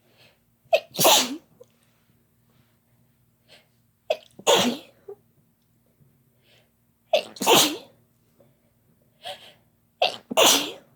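Four loud sneezes about three seconds apart, each a brief sharp catch followed by a longer burst, with faint breaths between them. The sneezes are brought on by chhinkni, a herbal sneezing powder.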